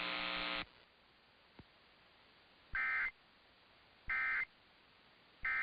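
Emergency Alert System end-of-message data tones: three short warbling digital bursts about a second and a half apart, marking the end of the broadcast alert. Before them, a steady buzzing hum cuts off about half a second in.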